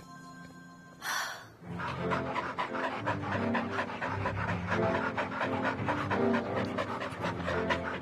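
Dogs panting, with background music coming in about two seconds in after a short whoosh about a second in.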